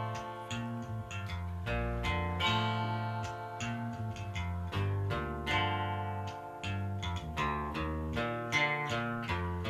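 Instrumental passage of a folk song: acoustic guitar strummed and picked in a steady rhythm over an electric bass line changing notes about every half second, with no vocals.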